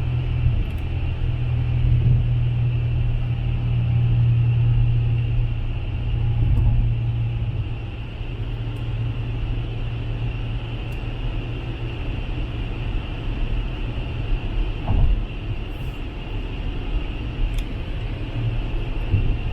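Steady low rumble of a motor vehicle running, with a faint high whine above it; it eases down slightly about eight seconds in.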